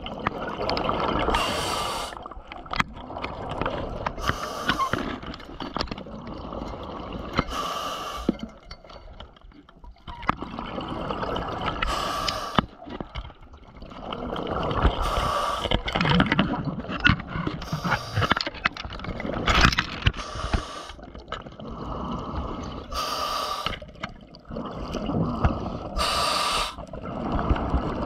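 A scuba diver breathing through a regulator underwater: a short hissing breath about every three to four seconds, with the gurgle of exhaled bubbles in between.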